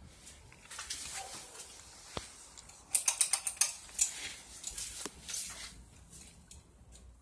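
Mechanical handling noise: irregular clicks and light rattles, with a quick run of about eight sharp clicks a little under halfway through and one more just after.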